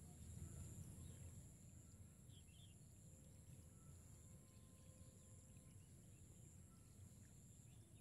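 Near silence: faint outdoor ambience, with a steady high-pitched hum and a low rumble.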